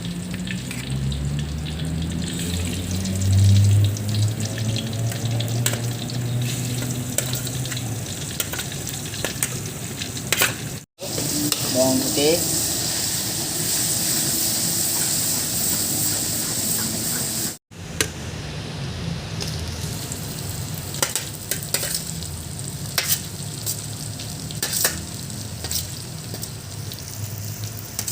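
Food sizzling in a hot pan while a spoon stirs and scrapes through it, with small clicks throughout. A low hum runs under it for the first eight seconds or so, and the sound drops out briefly twice, at about 11 and 17 seconds.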